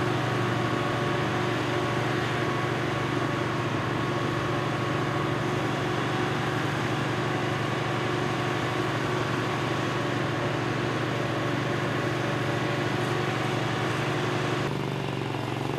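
Cedarapids asphalt paver's diesel engine running steadily as a dump truck tips blacktop into its hopper, a constant engine hum. A little before the end the sound turns slightly quieter and changes character.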